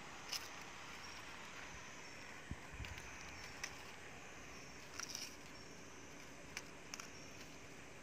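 Quiet outdoor ambience, a steady faint hiss with about seven short, light clicks and taps scattered through it, a small cluster about five seconds in.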